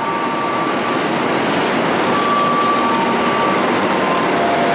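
Passenger train coaches rolling past along a station platform: a steady noise of wheels running on the rails, with a few short high-pitched squeals now and then.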